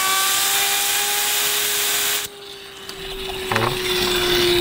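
Compressed air hissing as it spins a homemade fidget spinner up to a high whine that rises slightly in pitch. The air cuts off about two seconds in. The spinner keeps whining and, about a second later, grinds against a toy car's body, shaving off its paint.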